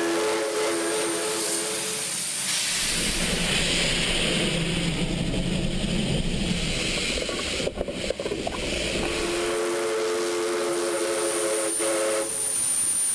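Steam locomotive's whistle sounding a steady multi-note chord, stopping about two seconds in; then a loud rush of hissing steam with a low rumble for several seconds; then the whistle blows again for about two and a half seconds near the end.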